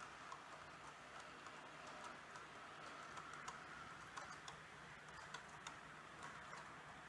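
H0-scale model freight train of hopper wagons rolling along the track: faint, irregular clicking of the wheels over rail joints, over a steady low hum.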